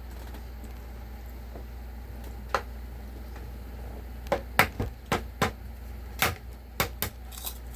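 A string of sharp taps and clicks from handling food and tableware during a meal: one tap, then about eight in quick succession near the end.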